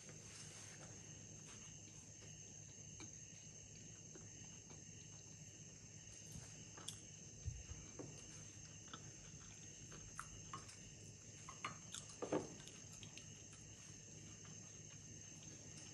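Near silence with a faint steady high whine. From about six seconds in come a few soft clicks and small knocks, the largest a little after twelve seconds, as she chews and picks up and handles a glass drinking jar with a straw.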